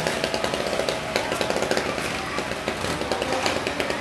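ATV engine running with a rapid, steady putter as the quad climbs a ramp of wooden pallets.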